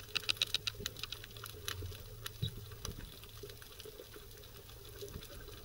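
Underwater crackling: scattered sharp clicks, densest in the first second, over a steady low hum picked up through an underwater camera's microphone.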